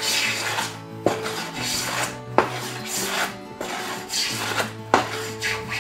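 Low-angle jack plane shaving a walnut board in repeated strokes, about one a second: each stroke is a rasping hiss, some beginning with a sharp knock as the plane bites. Background music plays throughout.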